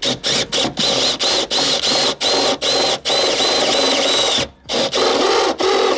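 Handheld power drill boring out an 8 mm hole in a carpeted ply panel, its motor whining in short repeated bursts, two or three a second, with a brief pause about four and a half seconds in.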